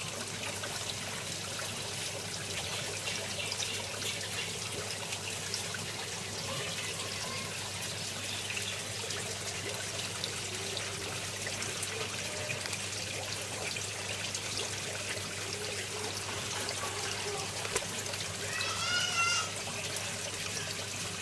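Water trickling and splashing steadily, as in an aquaponics system's water flow running into a tank, over a low steady hum.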